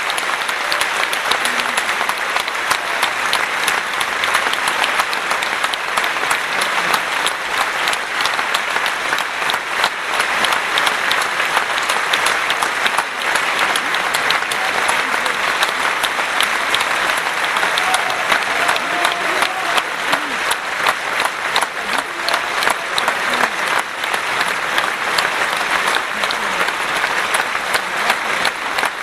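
Large audience applauding steadily, a dense, unbroken mass of hand claps.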